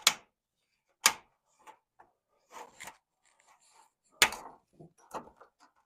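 Plastic screen retaining strip being squeezed into the channel of an aluminium storm door frame: three sharp snaps, at the start, about a second in and about four seconds in, with light clicking and rubbing between.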